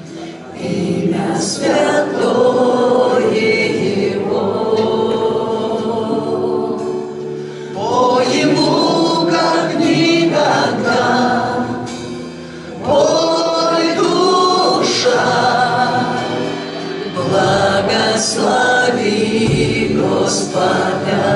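A group of voices singing a Christian worship song in phrases a few seconds long, with short breaks between lines.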